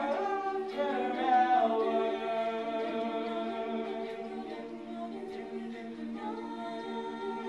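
Mixed-voice a cappella group singing into microphones: a moving melody over held chords, settling into a long sustained chord, with a new higher note coming in about six seconds in.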